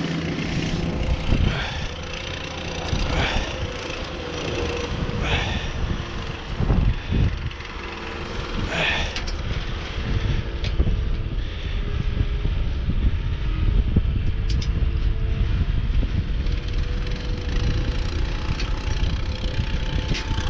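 Strong wind buffeting the microphone with an uneven low rumble, and a faint steady hum running underneath. A few brief knocks stand out in the first half.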